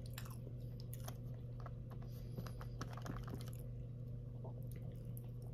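Close-up chewing of breaded fried chicken nuggets: wet mouth sounds with many small crunchy clicks, thinning out after about three and a half seconds. A steady low hum runs underneath.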